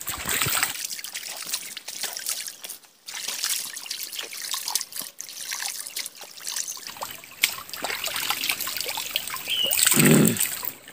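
Shallow forest stream trickling over stones while hands scoop water from it to drink, with small splashes and clicks. A short, louder sound comes near the end.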